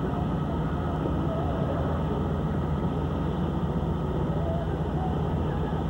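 Steady low rumble of a moving car's engine and tyres, heard from inside the car.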